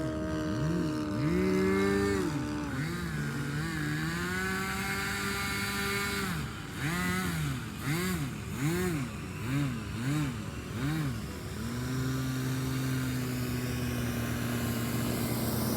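Radio-controlled model of a Dewoitine D.520 fighter in flight, its propeller motor note rising and falling in pitch again and again as it manoeuvres, in quick swings through the middle. Near the end the note settles into a steady drone.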